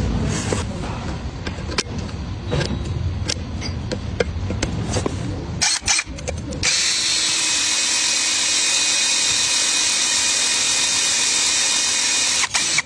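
Scattered metallic clicks and knocks as a wrench works a square bar jammed in a broken bolt. About seven seconds in, an electric drill starts boring steadily into the broken bolt stub in the steel plate, drilling it out so it can be removed with a screw extractor, and stops near the end.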